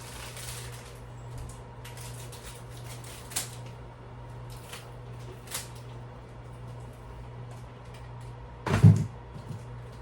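Household handling noises during cleaning: a few light clicks, then a loud knock near the end like a cupboard door or object being shut or set down, over a steady low hum.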